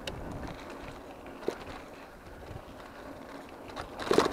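An e-bike rolling along a gravel-and-sand fire road: tyres crunching steadily with small rattles and clicks from the bike, and a louder rattle just after four seconds in as it crosses a rougher, rocky patch.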